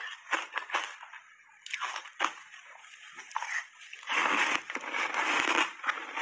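Ice coated in matcha powder being chewed close to a clip-on microphone: a run of sharp separate crunches, then denser, continuous crunching from about four seconds in.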